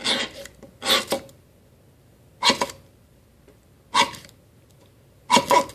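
Ultimate Survival Technologies Sparky ferro-rod fire starter struck five times, one short scrape about every second and a half, throwing sparks into cotton-ball tinder.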